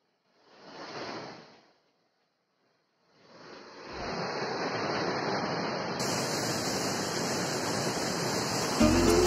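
Rushing water of a fast, muddy river current: a short swell of water noise about a second in, then the steady rush building from about three seconds in. Music comes in just before the end.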